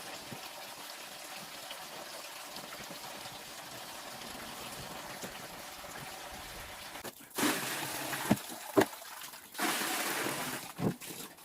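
Water running steadily, then two louder spells of running water about seven and ten seconds in, with a few sharp knocks between them, as a fridge is washed out.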